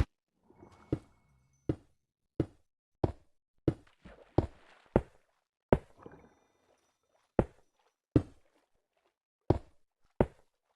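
About a dozen short, sharp knocks, roughly one every three-quarters of a second, with longer gaps between them in the second half.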